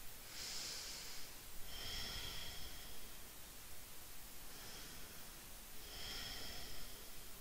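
A woman breathing slowly and softly, with four breath sounds of about a second each.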